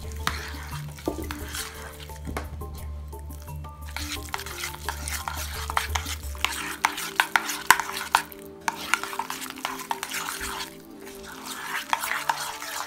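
Metal utensil stirring a thick mashed-chickpea paste in a stainless steel bowl: irregular clicks and scrapes of metal on metal as it works through the paste.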